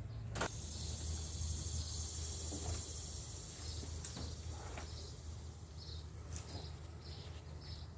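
Steady high insect buzzing over a low hum, with a sharp knock about half a second in and a few faint knocks and rustles as branches are handled in a pickup truck bed.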